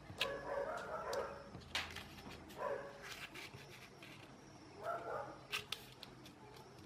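A dog barking in three short bouts, mixed with sharp clicks and crinkles of paper being handled.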